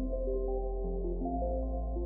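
Ambient electronic background music: soft held tones stepping through a slow melody over a steady low bass note that shifts pitch about 1.3 seconds in.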